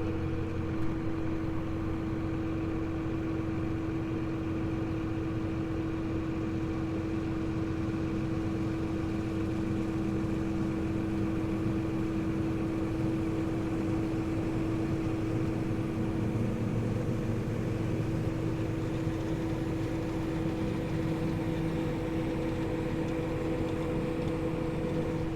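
Truck engine idling steadily with a constant hum, its low note shifting slightly partway through.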